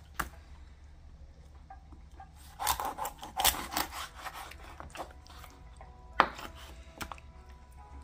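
Kitchen knife sawing through sail catfish on a bamboo cutting board. A run of rough sawing, scraping strokes starts about two and a half seconds in and lasts over a second. Sharp knocks of the blade on the wood come near the start and about six seconds in.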